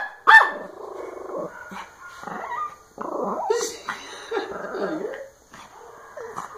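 Agitated dog barking at a cordless drill: one loud bark just after the start, then lower, drawn-out growling and whining with a few shorter barks, one of them about halfway through.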